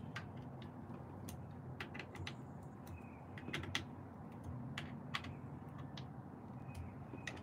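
Small metal clicks and ticks of a hand screwdriver turning screws into an electric unicycle's pedal-lowering bracket, coming irregularly about two a second.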